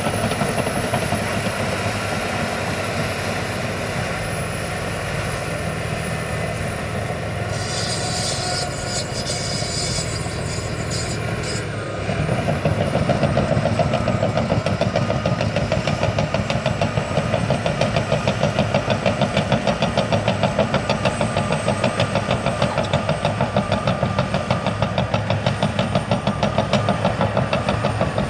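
Caterpillar D6T XW VPAT bulldozer's diesel engine running steadily while the dozer works. It gets louder about twelve seconds in and takes on a regular pulsing, with a crackling noise over it for a few seconds just before.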